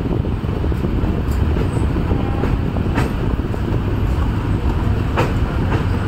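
Passenger train running over a bridge, heard from inside a carriage: a steady low rumble of wheels on the track, with two sharp clicks about three and five seconds in.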